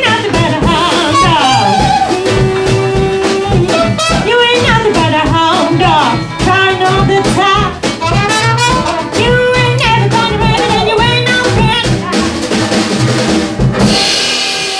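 Live acoustic band of trumpet, violin, banjo, upright double bass and drum kit playing an up-tempo jazzy number, with the drums keeping a steady beat. The music breaks off near the end and applause begins.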